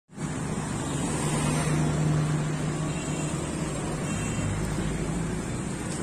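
Road traffic noise, with a motor vehicle's engine humming steadily, strongest in the first few seconds.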